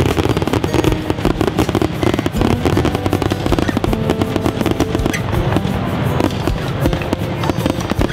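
Fireworks display: a dense, rapid crackling and popping of aerial shells bursting overhead, loud throughout, with music playing underneath.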